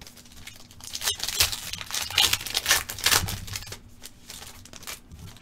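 Foil wrapper of a trading card pack crinkling and tearing as it is ripped open by hand. It is loudest from about one second in until past three seconds, then trails off into lighter rustling.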